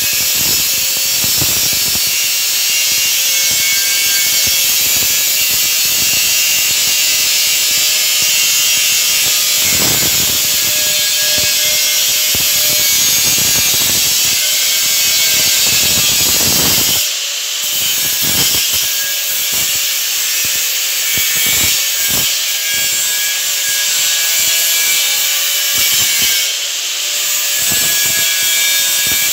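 Angle grinder running with its abrasive disc against metal, a steady high hiss and whine. It eases off briefly twice in the second half, as the disc comes off the work.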